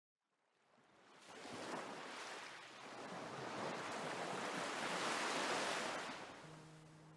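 Waves washing in: a rushing noise fades in after a moment of silence, swells to a peak and ebbs away. Soft sustained musical notes come in near the end.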